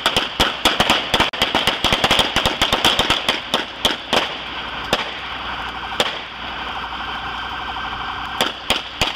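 Gunfire in an exchange of shots: rapid cracks, several a second, for about the first four seconds, then single shots at intervals and a few more near the end. A steady high-pitched tone runs underneath from about halfway.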